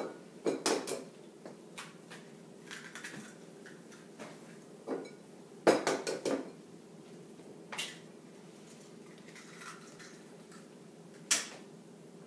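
Scattered sharp knocks and clinks of eggs being cracked against the edge of a bowl, with bowls and utensils clattering on the counter. The loudest knocks come about six seconds in and near the end.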